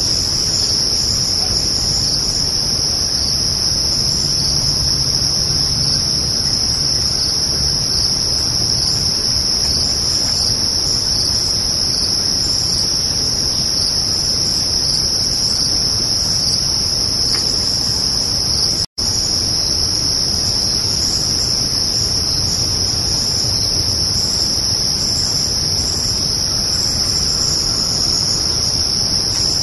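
Crickets chirping in a dense, steady night chorus, with a split-second dropout about 19 seconds in.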